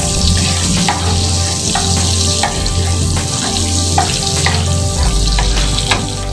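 Butter melting and sizzling in hot cooking oil in a nonstick frying pan, with a wooden spatula scraping and tapping against the pan every second or so.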